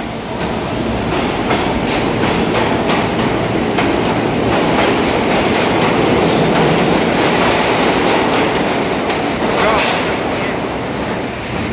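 R46 subway train pulling out of the station and running past, its wheels clicking rhythmically over the rail joints under a steady rumble, with a brief wheel squeal near the end as the last car leaves.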